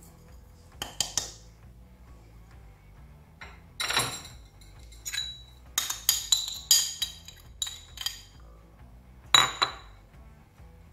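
Ceramic bowl and metal spoon clinking against a stainless-steel pot as the bowl is emptied into it. A scattered run of sharp, ringing clinks, the loudest near the end.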